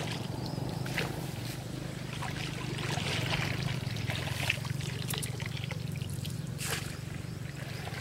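Water trickling and dripping from a woven bamboo scoop basket worked through shallow pond water, with a few sharp rustles and clicks, over a steady low hum.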